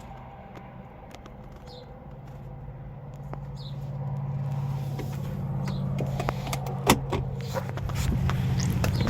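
A motor vehicle engine running at a steady pitch, growing louder over several seconds, with scattered clicks and knocks near the end.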